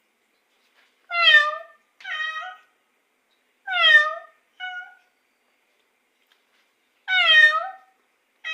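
Domestic cat meowing repeatedly: three long meows about three seconds apart, the first two each followed closely by a shorter call.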